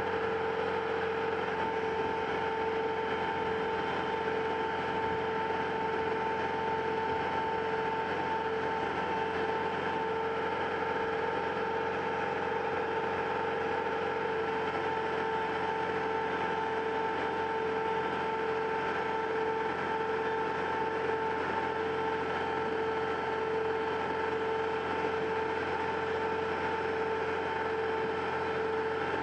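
Boatyard travel lift's engine and hydraulic pump running steadily with a constant high whine over a low hum, holding a cabin cruiser in its slings for haul-out.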